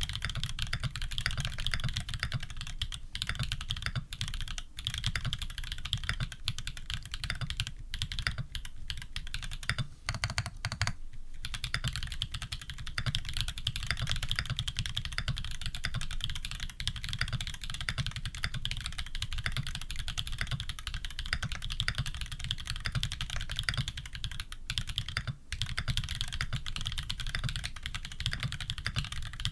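Fast continuous typing on a Leaf65 custom mechanical keyboard with Holy Panda tactile switches, PBT keycaps and a brass plate, dense key clacks with a short pause about ten seconds in.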